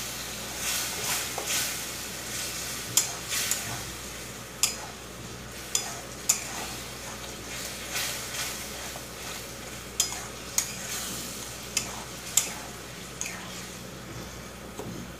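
Thick tomato chutney sizzling in a stainless-steel kadai as it is stirred with a spatula. The spatula scrapes and taps against the pan irregularly, about once a second.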